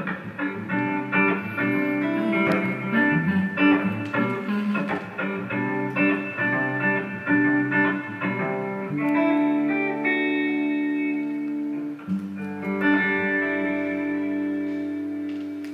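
Guitar playing the instrumental close of a song: a run of picked notes, then a few chords left ringing that fade away near the end.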